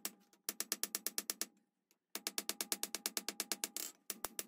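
Rapid hammer blows on red-hot railroad-spike steel on an anvil, about nine strikes a second in three runs with short pauses, the anvil ringing under each blow. The steel is being flattened down to about a quarter inch thick.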